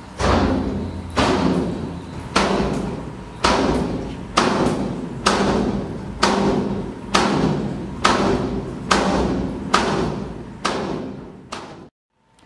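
An Amur tiger repeatedly striking a door, about once a second, a dozen or so loud thuds, each one ringing and fading before the next.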